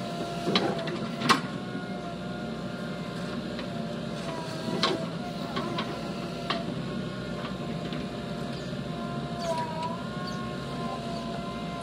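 JCB 3DX Plus backhoe loader working: diesel engine running with a steady whine that wavers slightly in pitch, and a few sharp metal clanks, the loudest about a second in.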